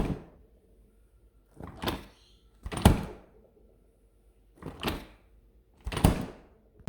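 Five separate thuds, one to two seconds apart, each a light tap followed at once by a louder knock with a short ring after it.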